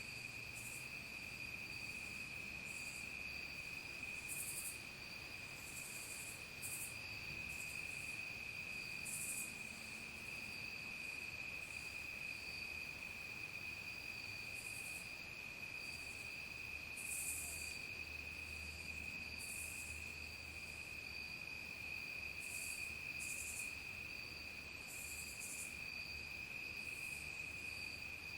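Evening insect chorus: crickets trilling in one steady high tone, with short, even higher-pitched insect buzzes coming every second or two.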